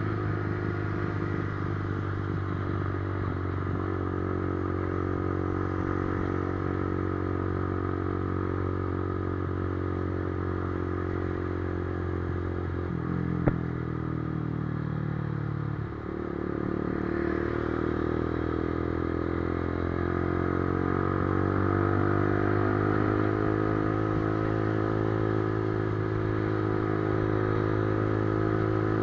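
Motorcycle engine running under way at a steady note. About halfway through there is a single sharp click and the engine note drops as the throttle eases. It then climbs again as the bike accelerates.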